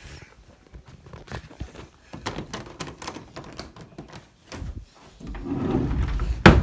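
Handling noise from a hand-held camera being carried through the house: a run of light knocks and taps, then a low rumbling rub against the microphone, and a sharp door click near the end.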